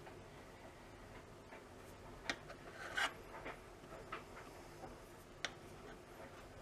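A few faint clicks and light scrapes of a steel Allen key working the screw of the air release valve on an air rifle cylinder's knurled brass end cap.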